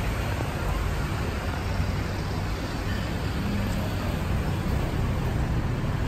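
Steady street traffic noise from passing cars and trucks, an even hiss over a deep low rumble.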